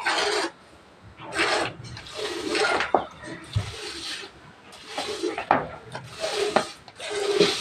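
Streams of milk squirting from a water buffalo's teats into a steel bucket during hand milking: short hissing squirts, roughly one a second.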